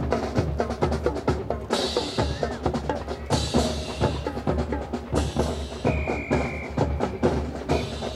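Marching drum corps of snare and bass drums playing a fast drill cadence with rolls and crisp, wood-block-like strokes. A short, steady high tone sounds about six seconds in.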